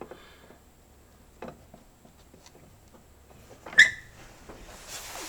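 Quiet handling at a table saw's dado setup: a few light knocks, and a sharp metallic clink with a short ring a little under four seconds in. A louder rushing noise builds near the end.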